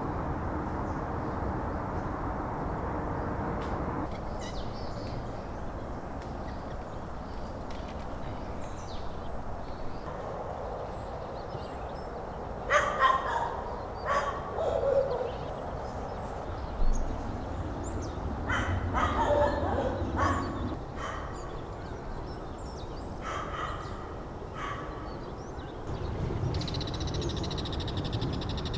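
Harsh bird calls in two loud bouts, about halfway and two-thirds of the way through, with a few shorter calls between, over a steady low background. A steady high trill sets in near the end.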